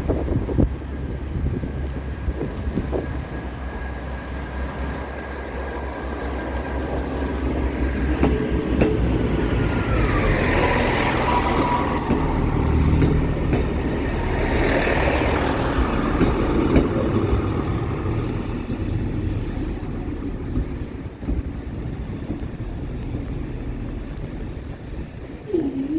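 A train passing over the level crossing: a steady rumble with a whine that drops in pitch as it goes by, and the sound swelling twice as the train passes.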